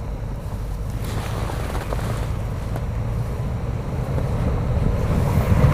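Off-road vehicle engine running under load as it tries to climb a snowy slope, revving up louder and higher near the end. Wind noise on the microphone runs underneath.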